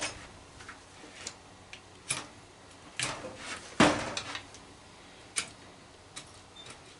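Scattered knocks, clicks and clunks of metal microwave parts being handled and set down, about half a dozen, the loudest a heavier clunk about four seconds in.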